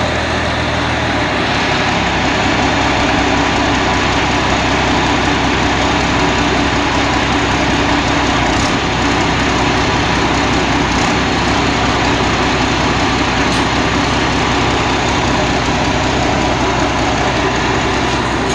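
Diesel engine of a custom-built tracked rice combine harvester running steadily and loudly, its low note shifting about a second in.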